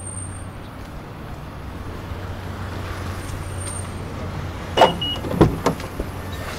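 Car engine running steadily with a low hum. About five seconds in come a few sharp clunks in quick succession.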